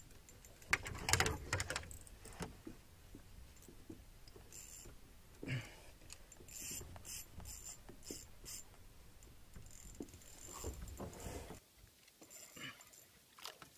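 Spinning reel being cranked, its gears clicking and rattling in short spells, as a fish is played on a bent rod. A low rumble runs underneath.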